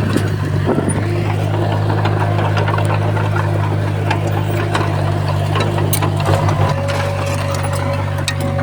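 Crawler bulldozer's diesel engine running steadily under load, with scattered clicks and knocks over it. A steady whine joins about seven seconds in.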